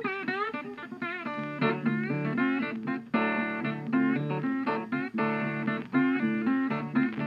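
Background music led by guitar, with bending notes and a steady beat.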